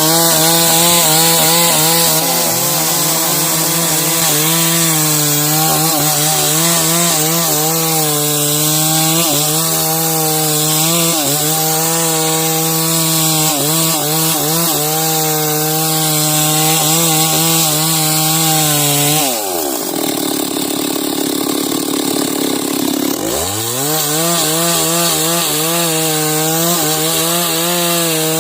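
Two-stroke chainsaw running at high revs, its bar cutting along the length of a log. About two-thirds of the way through, the engine drops to idle for a few seconds, then revs back up and goes on cutting.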